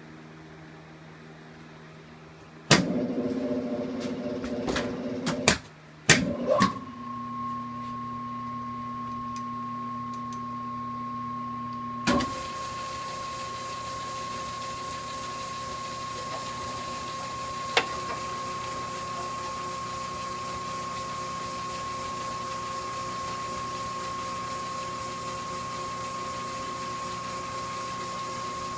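South Bend 10 engine lathe being started and run. A click about three seconds in sets off a few seconds of louder mechanical clatter and more clicks, then it settles into a steady running hum with a high whine, with another click around twelve seconds in.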